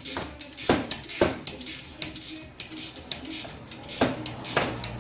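Hand tools and steel brake hardware clinking and clanking: a string of sharp metal knocks, the loudest about a second in and again near the end, as the caliper bracket bolts are worked loose and handled.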